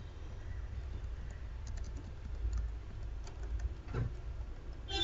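Computer keyboard being typed on: a scattered run of light key clicks, with one louder knock about four seconds in, over a low steady hum.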